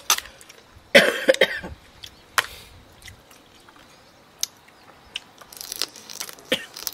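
Close-up eating sounds of shellfish being sucked and chewed, with sharp clicks of shells and cutlery. A loud rough burst comes about a second in, and a hissing slurp near the end.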